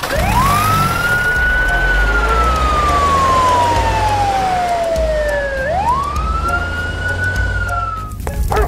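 Fire engine siren wailing: the pitch climbs quickly, sinks slowly over about four seconds, climbs again, and cuts off shortly before the end. A low engine sound runs underneath.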